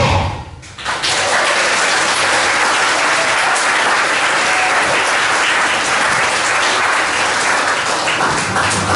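A song ends, and about a second in an audience starts applauding, steady and sustained.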